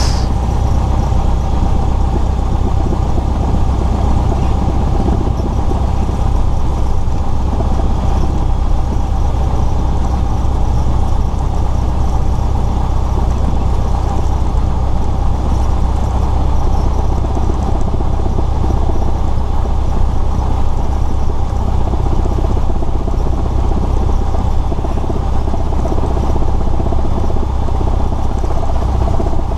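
Cessna 172S's four-cylinder Lycoming engine and propeller running steadily at low taxi power, a continuous drone heard from inside the cabin.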